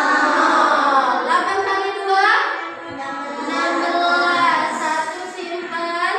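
Young children singing a song, with long held notes that slide upward in pitch.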